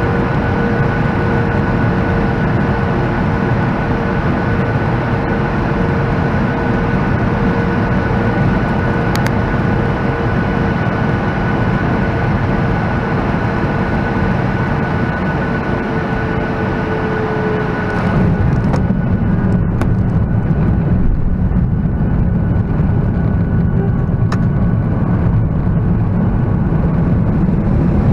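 Cabin sound of a Boeing 737-900ER with CFM56-7B engines: a steady engine drone and airflow rush with a high whine held steady. About 18 seconds in the whine stops and the sound turns lower and a little louder.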